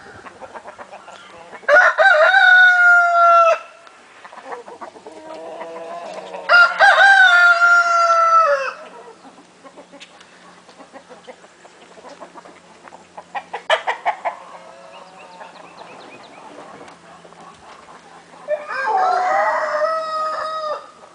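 Roosters crowing three times, each crow about two seconds long, with hens clucking softly between the crows.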